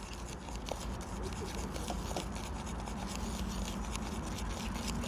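Wooden stick stirring wet fish-meal paste bait in a plastic bowl: a steady run of small scratchy scraping strokes as the bait is mixed.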